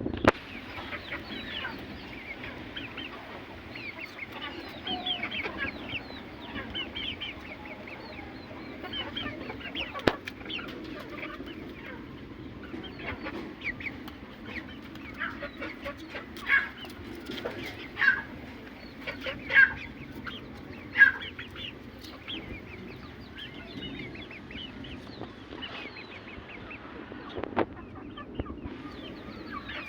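Chickens clucking and calling, with many short high chirps throughout and four louder calls spaced about a second and a half apart in the middle.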